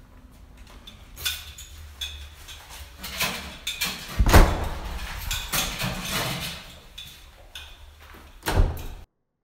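Clicks and clunks from a building's entrance door and metal wall mailboxes being handled, with a heavy thud about four seconds in and another near the end. The sound then cuts off suddenly.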